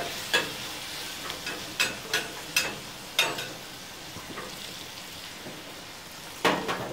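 Onion wedges in olive oil sizzling in a hot dish on a gas grill, with a metal spatula clicking against the dish several times in the first few seconds as they are stirred apart. A louder knock comes near the end.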